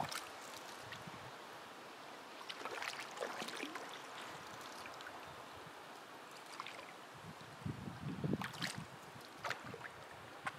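A canoe being paddled on calm water: paddle strokes swirl and splash, water trickles off the blade, and light lapping runs along the hull. The strokes come in irregular clusters, the loudest a little past the middle.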